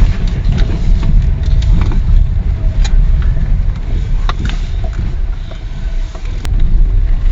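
Lada Vesta driving over a rough road, heard from inside the cabin: a heavy low road rumble with scattered sharp knocks from the steering rack and electric power steering. The rack turned out to be nearly dry of grease.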